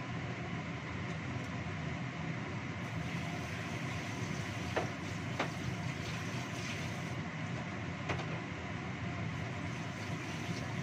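Steady rumbling of a gas stove burner under a lidded saucepan of chicken simmering in spiced broth, with a few faint clicks around the middle.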